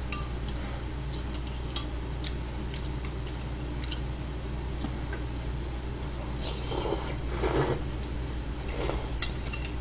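A metal spoon clinks lightly against a ceramic bowl as kimchi stew is scooped. About seven seconds in there is a burst of slurping and eating as the stew is taken from the bowl, and a steady low hum runs underneath.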